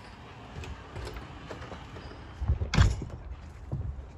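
A house door being opened and closed, with a loud sudden clunk a little under three seconds in and a smaller knock about a second later, over low handling noise.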